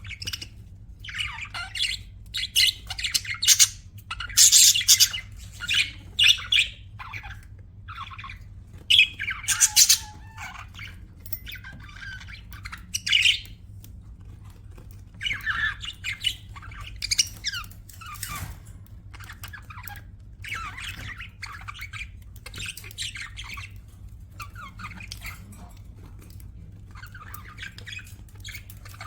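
Budgerigars chirping and squawking in irregular bursts of short, chattering calls, busiest in the first several seconds, over a faint steady low hum.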